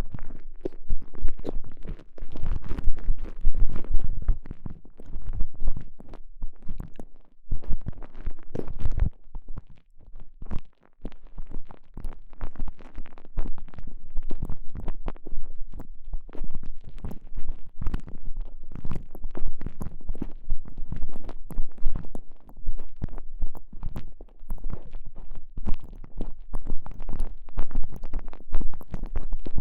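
Dense, irregular squishing and rubbing of a stretchy TENGA Egg sleeve worked over a microphone inside it, with heavy low thuds and crackling rubs.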